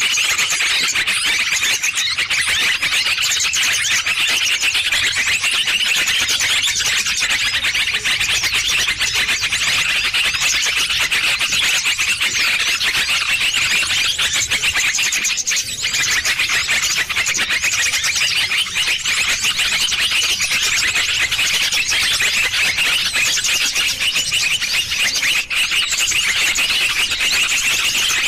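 Bird-trapping lure recording of small birds: a dense, unbroken chatter of rapid high-pitched chirps and twitters, as from many small birds calling at once, loud and steady with only a brief dip about halfway through.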